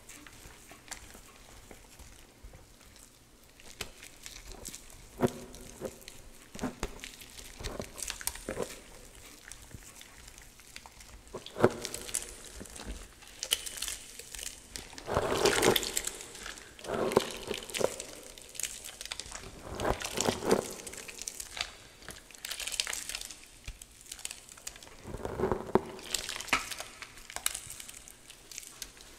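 Hands squeezing, crushing and crumbling damp gym chalk mixed with water in a metal bowl: irregular soft crunches and squishes of powdery clumps. The crunching is sparse at first and grows louder and busier in the second half.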